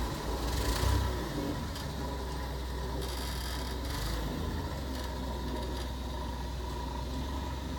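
Engine of a Daewoo G20SC gas-powered forklift running steadily under load while it carries a wooden shed, with a brief louder swell about a second in.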